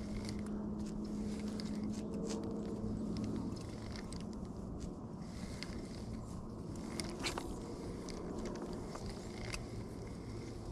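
Spinning reel being cranked to retrieve a jig, a whir of the reel with small scraping clicks, over a steady low hum that drops in pitch about three and a half seconds in.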